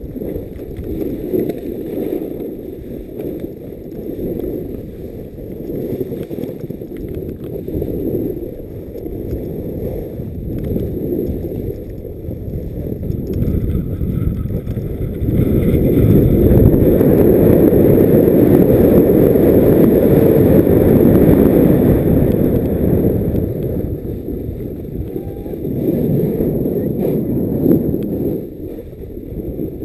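Wind rushing over a moving camera's microphone and snow sliding under a snowboard during a fast downhill run; the noise swells and falls with speed, loudest for several seconds from about halfway through.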